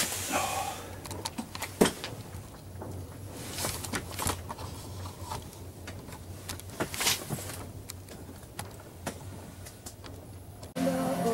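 Scattered light clicks, knocks and rustling of gear and fabric inside an ice-fishing shelter, over a low steady hum. Near the end the sound cuts abruptly to something louder.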